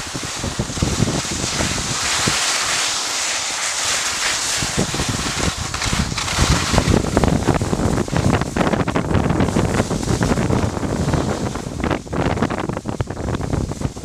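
Wind buffeting the microphone of a skier moving downhill, with the hiss of skis sliding over packed snow. The hiss is strongest through the first half.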